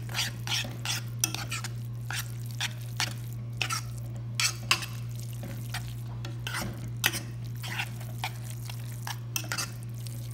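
A spoon stirring and scraping creamy rice around a pan: irregular scrapes and light knocks against the pan, over a steady low hum.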